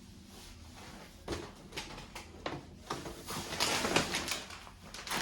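Grocery packages being handled: irregular rustling and knocks, busiest about three to four seconds in.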